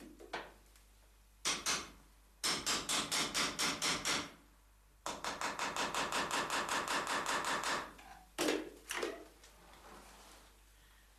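Hammer tapping on a tubular metal frame: a couple of knocks, then two quick runs of light, even blows at about seven a second, and a few last knocks near the end.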